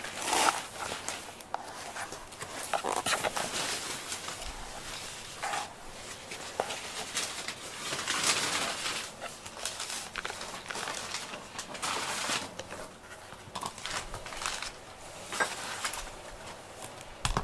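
Small rubber grooming brush rubbing through a cat's short black fur in a series of uneven brushing strokes, a soft swishing rustle.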